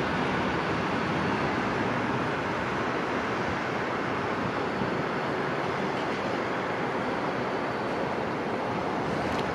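Distant roar of a Boeing 737-900ER's two CFM56-7B turbofan engines at takeoff thrust as the jet lifts off and climbs, a steady even rush that fades slightly.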